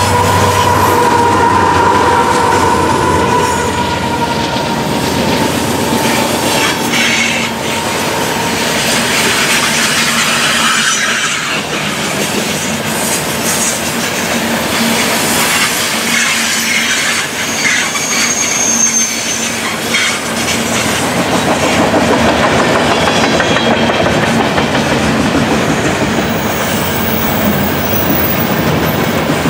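Covered hopper cars of a long freight train rolling past on a curve: steady wheel-on-rail noise with clickety-clack and a brief high flange squeal. In the first few seconds the engines of the mid-train GE AC4400CW locomotives fade away as they move off.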